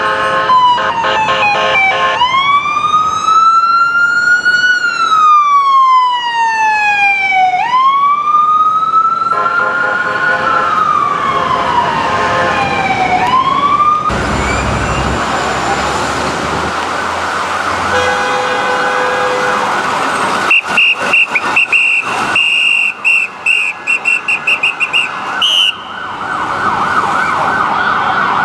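Ambulance electronic sirens. A fast-cycling siren at first, then a wail sweeping slowly up and down in cycles of about five seconds. About halfway through it changes to a harsher, noisier steady tone, with a run of short, rapid blasts near the end.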